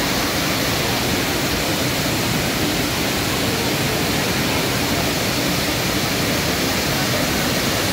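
Waterfall rushing: a steady, loud roar of water cascading over rocks into a pool.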